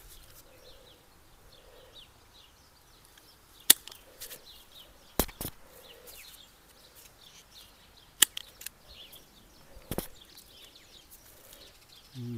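Hand pruning shears snipping woody lavender stems during a hard prune: about four sharp snips spaced one to three seconds apart, one of them doubled.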